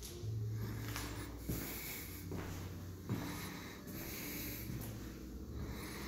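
Rubbing and rustling handling noise from a handheld camera carried through an empty room, with two sharp knocks about a second and a half apart.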